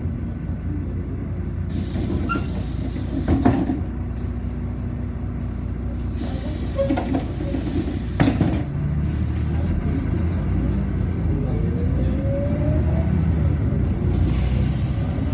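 City bus running during a ride, with a steady low rumble. Two sharp knocks come about a third of the way in and about halfway through. There are short bursts of air hiss, and a rising whine near the end.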